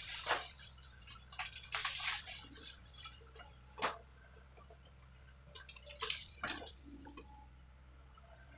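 Hydraulic excavator working in brush: its engine gives a faint, steady low hum, under irregular crackling and snapping of branches and undergrowth as the bucket tears through the vegetation.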